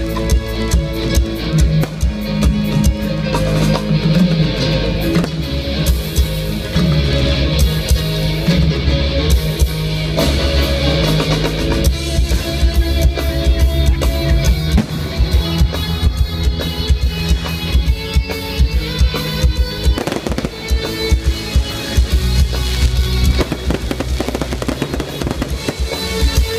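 Aerial fireworks bursting and crackling over loud music: many sharp bangs throughout, one heavier burst about twenty seconds in.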